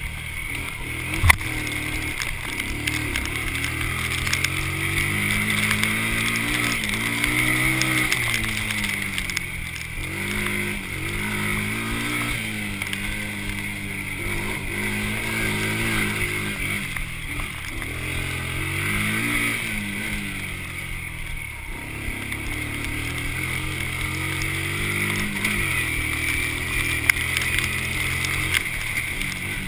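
Honda TRX90 Sportrax quad's small four-stroke single-cylinder engine, revving up and dropping back again and again as it is ridden around a dirt track. A single sharp knock comes about a second in.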